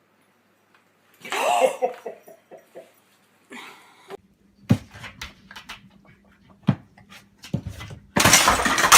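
A dog vocalising a little over a second in, in a short run of pitched calls, followed by scattered knocks and a loud noisy clatter near the end.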